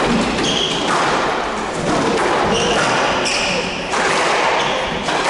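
Squash rally: the ball is struck by rackets and smacks off the court walls several times, while shoes squeak on the wooden court floor over a steady background din.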